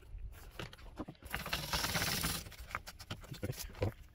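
Hands cleaning grime off a car's engine bay: a rag rubbing and scraping over greasy plastic and metal parts, with a rushing hiss for about a second and scattered small clicks and taps.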